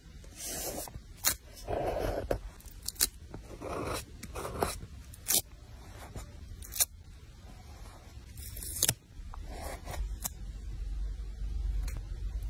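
Paper and stationery being handled while assembling a journal page: irregular sharp clicks mixed with short scraping, rustling strokes.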